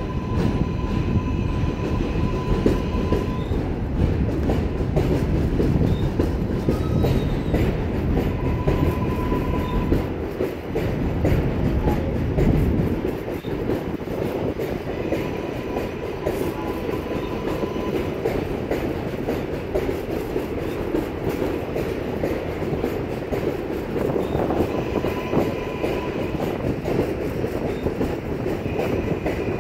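New York City Subway 7 train running, heard on board: steady rumble with the wheels clattering over the rails. A faint high squeal comes and goes several times. The low rumble is heavier for the first dozen seconds, then eases.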